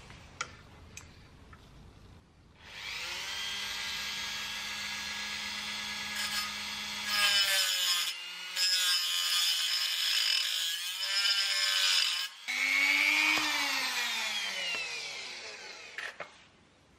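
Dremel rotary tool with a small cut-off wheel cutting through a thin sheet-metal brake dust shield. A high-pitched whine starts about two and a half seconds in, wavers in pitch as the wheel bites, stops briefly twice, and dies away near the end.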